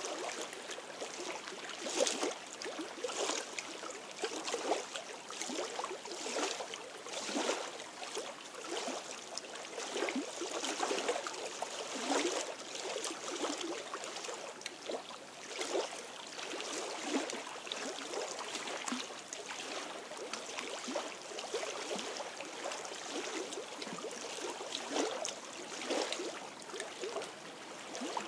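Small waves lapping and splashing irregularly against stones at the edge of a lake.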